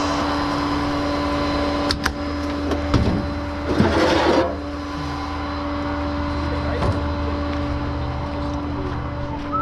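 A steady mechanical hum with a constant tone, broken by a couple of sharp knocks and a short hiss about four seconds in.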